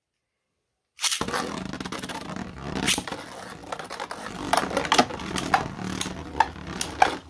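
Beyblade spinning tops scraping around a stadium floor, with sharp clacks as they strike each other. It starts abruptly about a second in, after a second of dead silence.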